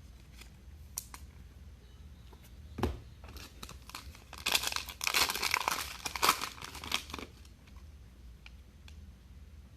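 Crinkly plastic wrapper of a trading card pack being torn open and crumpled for a few seconds, after a single soft thump.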